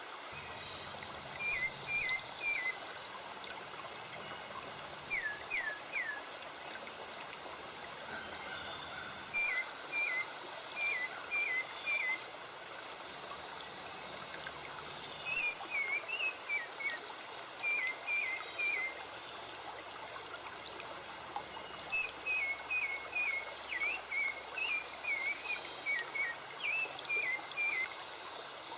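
A bird calling in quick runs of three to five short, high notes, the runs repeated every few seconds, over the steady rush of a running stream.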